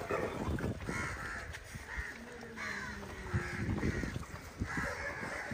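Short harsh animal calls repeating several times a second over low background noise.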